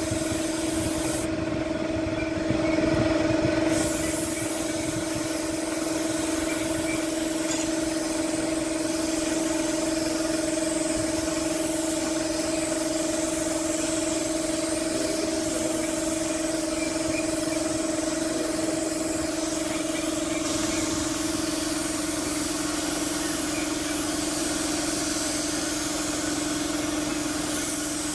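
Paint spray gun hissing over the steady hum of a motor-driven sprayer or compressor, as roof tiles are recoated in a new colour. The hiss stops briefly about a second in while the hum carries on.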